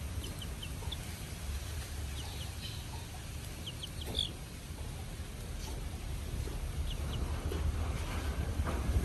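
Young chicken peeping: short high cheeps in clusters of two or three, every second or two, over a low steady rumble.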